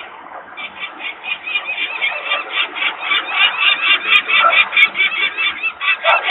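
Adult peregrine falcon calling a rapid, harsh series of repeated notes, about five a second, starting about half a second in and growing louder. It is the parents' agitated screaming at the nest while workers make noise nearby.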